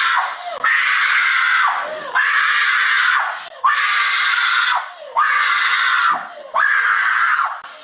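A young woman screaming over and over in distress, a run of long screams about a second each. Each trails off in a falling cry, with short breaths between them.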